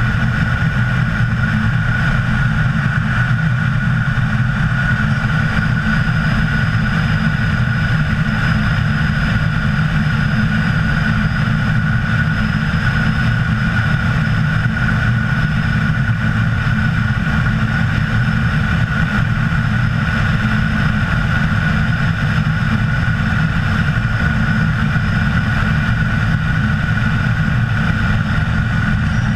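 Loud, steady wind rush buffeting the camera's microphone in wingsuit flight, with a thin steady whistle over it.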